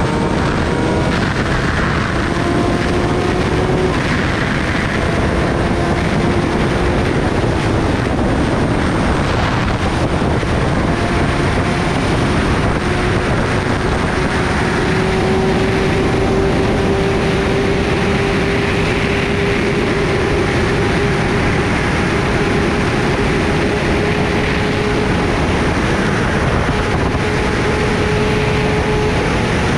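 Kawasaki Ninja ZX-10R's inline-four engine pulling at highway speed, its pitch climbing slowly and steadily, under a loud rush of wind and road noise.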